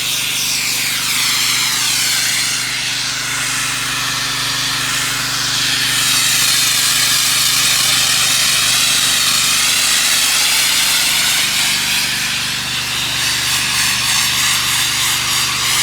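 Pressure washer at 8 gallons a minute and 3,500 PSI spraying through an open ball-valve rinse tool: a loud, steady hiss of high-pressure water over the steady hum of the machine's motor and pump.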